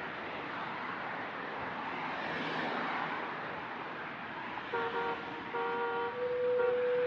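A wash of noise that swells and eases off, like surf or distant traffic. Sustained horn-like tones come in at about four and a half seconds, one of them held steady toward the end.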